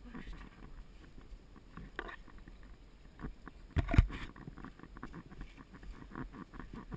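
A horse being ridden over rough grass: irregular hoofbeats with rustling and tack noise, and one loud thump about four seconds in.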